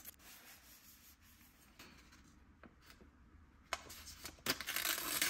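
Freshly sharpened kitchen knife slicing through a sheet of paper: quiet at first with faint ticks, then a click and a short papery rasp near the end as the blade cuts through.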